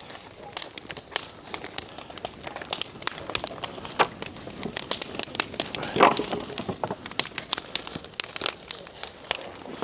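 Scrap-lumber fire crackling, with irregular sharp snaps and pops.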